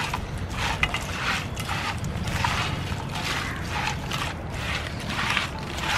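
Hands mixing crab pieces into a wet masala: repeated squishing, scraping strokes, about one or two a second, over a steady low hum.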